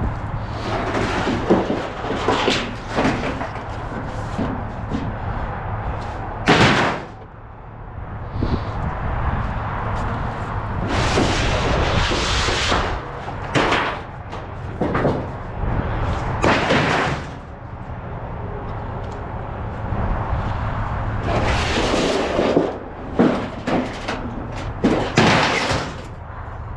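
Scrap metal being handled and loaded: a run of loud bangs, clanks and clattering strikes at uneven intervals, over a steady low hum.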